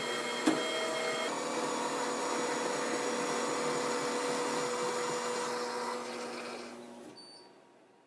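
HLF 700 Series espresso machine frothing and dispensing milk onto an espresso: a steady mechanical whirr and hiss with a sharp click about half a second in. It winds down from about six seconds in and stops near the end.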